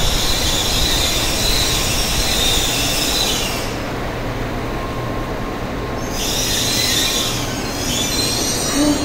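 N700S Shinkansen train braking to a stop at a station platform, with a low rumble and a high-pitched squeal that sounds from the start until about three and a half seconds in, then again from about six seconds in until near the end.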